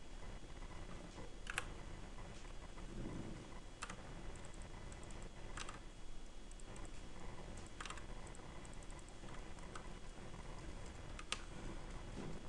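Computer mouse and keyboard clicks while working in drafting software: about five sharp clicks a couple of seconds apart, with fainter quick ticks clustered in the middle.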